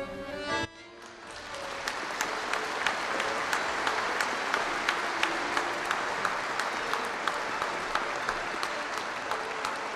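Audience applause swelling up about a second in, with sharp claps in a steady rhythm about twice a second. A fiddle and an accordion play faintly beneath.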